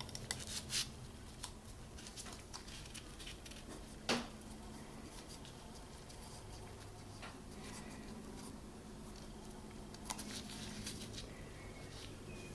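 Gloved hands handling an oil filter housing cap while fitting a new rubber gasket onto it: scattered small clicks and rubbing, with one sharper click about four seconds in and a few more clicks near the end, over a faint steady hum.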